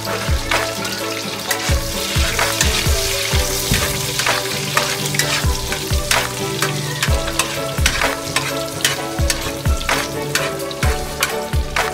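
Chopped garlic and onion sizzling in hot oil in a wok, stirred with a spatula. Background music with a steady beat plays underneath.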